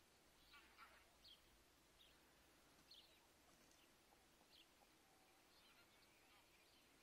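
Faint, high peeping of greylag goose goslings: short calls every second or so over a quiet background hiss.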